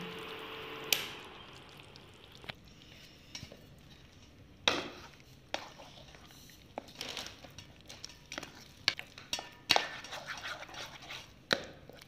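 Metal spoon stirring and beating a thick flour-and-water jalebi batter in a bowl, with irregular clinks and scrapes against the bowl and a few sharper knocks. In the first second the hiss of the just-boiled sugar syrup dies away.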